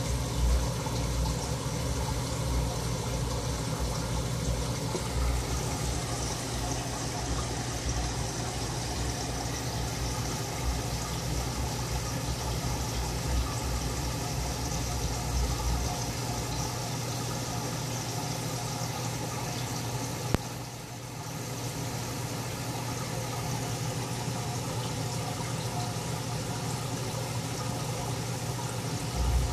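Steady background hum and hiss from a motor or running water, with a low rumble that fades out about halfway through and a single click followed by a brief dip about two-thirds of the way in.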